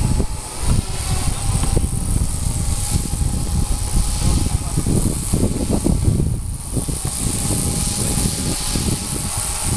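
4F200 RC helicopter's electric motor and rotor whining steadily in flight, under a gusty low rumble of wind buffeting the microphone.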